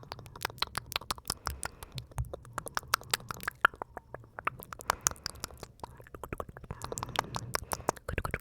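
Close-miked wet mouth sounds: rapid tongue and lip clicks and smacks, several a second, in an uneven crackling stream.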